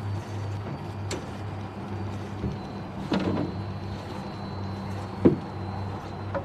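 A few knocks and clunks on a fiberglass boat's stern as gear is handled there, the sharpest and loudest just after five seconds in, over a steady low hum.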